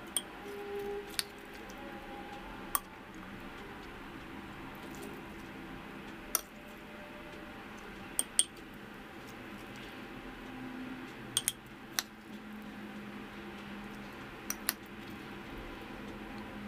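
Metal spoon clinking against a glass jar as sliced cucumber, tomato and onion are spooned in: about a dozen sharp, separate clinks at uneven intervals, over a low steady background noise.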